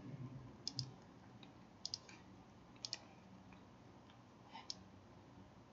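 Faint computer mouse button clicks, mostly in quick pairs like double-clicks, four times over a quiet room background.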